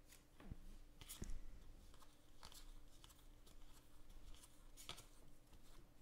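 Faint sliding and flicking of baseball trading cards being thumbed through one at a time, with a few soft clicks scattered through.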